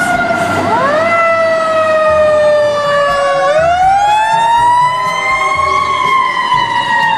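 Fire truck sirens wailing as fire apparatus pull out on an emergency response: two siren tones overlap, one sliding slowly down and then rising again about three and a half seconds in, the other sweeping up about a second in.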